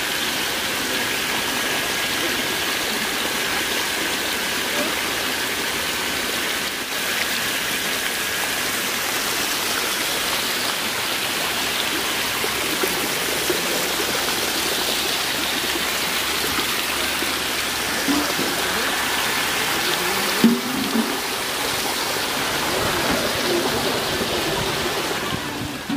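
Water gushing and splashing steadily from inlet pipes into shallow fish-rearing tanks. A faint thin whine sits under it for the first several seconds, and there is a brief knock about twenty seconds in.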